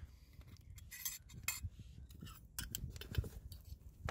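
Stainless steel camp cup and metal lid being handled: a few scattered light clinks and scrapes of metal on metal.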